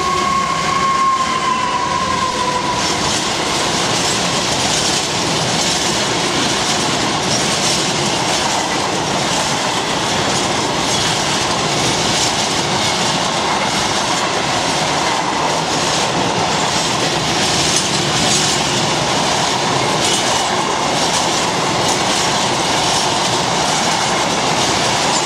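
A Class 66 diesel freight locomotive passes, then a long rake of empty flat wagons rolls by at speed with a steady rumble and clatter of wheels on the rails. A high whine drops in pitch and fades over the first two seconds.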